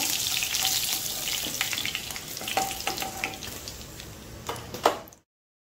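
Hot oil sizzling in a nonstick kadai as the last pieces of fried chicken are lifted out with a metal spoon, which clinks and scrapes against the pan a few times. The sizzle slowly dies down, a sharp clink near the end is the loudest sound, and the sound cuts off suddenly about five seconds in.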